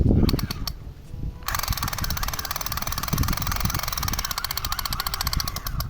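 Toy gun firing its electronic rapid-fire effect: a few clicks, then from about a second and a half in a fast, even clatter with a wavering tone over it, lasting about four seconds.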